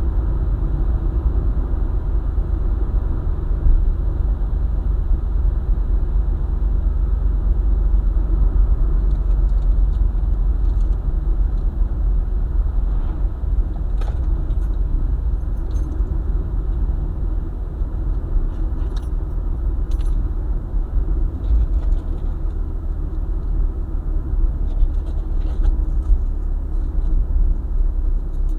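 Car driving along a highway: a steady low rumble of engine and tyres on the road, with light clicks and rattles now and then.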